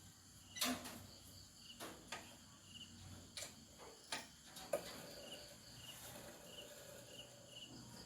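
A few sharp, scattered clicks and knocks from working the rear brake of a Bajaj CT100 motorcycle, over faint, steady cricket chirping.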